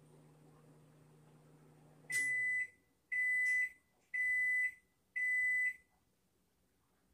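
Microwave oven running with a faint hum that cuts off about two seconds in, then sounding its end-of-cycle signal: four high beeps of about half a second each, roughly one a second, marking that the heating is done.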